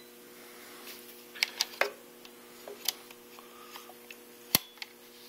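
A handful of sharp clicks and taps from a handheld clamp meter being handled and clipped onto a wire, over a faint steady electrical hum.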